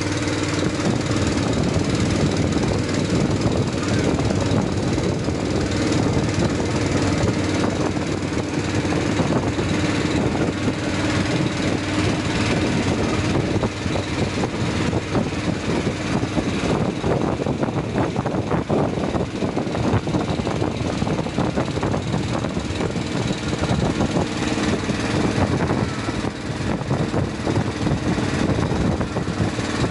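A small wooden passenger boat's engine running steadily while the boat is underway, a constant low drone.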